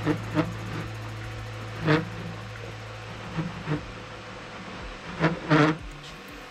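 Short plastic knocks and scrapes, about eight of them, as a large 3D-printed plastic planet is turned by hand and resists turning. A steady low hum runs underneath.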